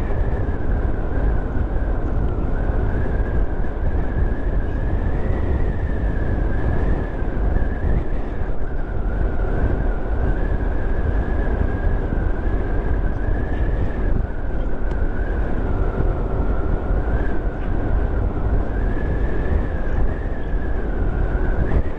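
A motorcycle riding at speed: the engine runs steadily under a deep rumble of wind on the microphone, with a thin high whine that wavers slightly in pitch.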